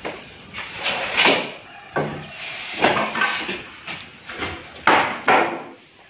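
Corrugated cardboard of a refrigerator shipping carton being handled as its top flaps are pulled open and bent back: a series of short scraping rustles and dull knocks, several over a few seconds.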